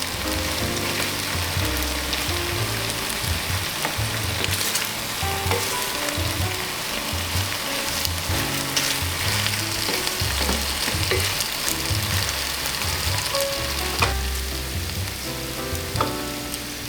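Food frying and sizzling in a pan while it is stirred, with a couple of sharp utensil clicks near the end, over background music.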